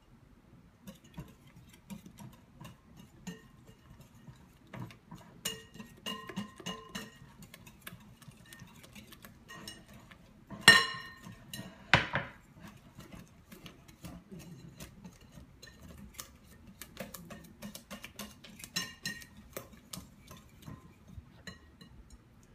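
Wire whisk beating eggs and flour in a glass mixing bowl: fast, steady clicking and scraping of the wires against the glass, with a brief ringing tone at times. Two louder glassy knocks come about halfway through.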